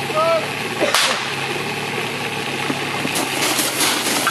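Portable fire pump engine idling steadily. A single sharp crack about a second in, the start signal, is followed from about three seconds in by quick metallic clanking of hose couplings and suction hoses being handled and coupled.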